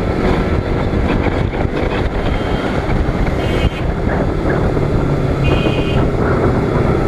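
KTM RC sport bike's single-cylinder engine running steadily at cruising speed, mixed with wind rush on the helmet microphone. Two brief high beeps sound in the middle, the second about two seconds after the first.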